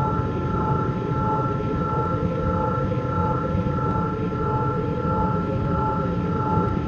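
Sci-fi spacecraft engine sound effect: a steady low rumble with two high whining tones on top that pulse gently.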